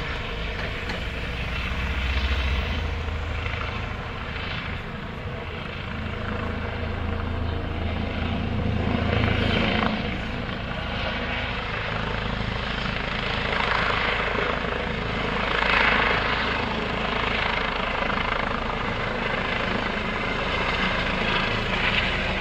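Airbus Helicopters H135 (EC135 P2) rescue helicopter flying low and coming closer, with continuous rotor and turbine noise that swells and eases several times.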